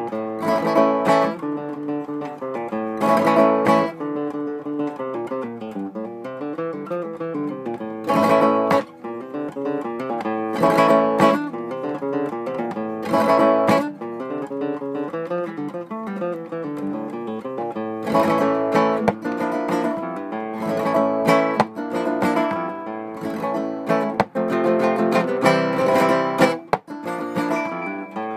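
Solo Spanish guitar playing flamenco tangos: picked single-note lines and chords, punctuated every few seconds by loud strummed chords.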